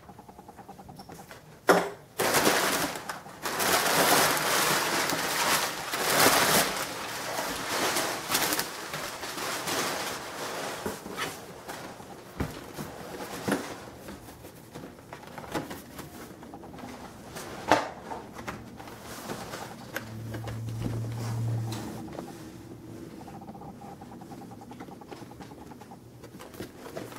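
Packaging being handled and opened: a sharp knock, then several seconds of loud rustling, followed by scattered clicks and knocks. A second sharp knock and a brief low hum come later.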